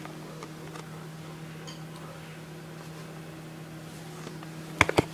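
Microwave oven running with a steady low hum while it melts a bowl of chocolate pieces, with two sharp clicks near the end.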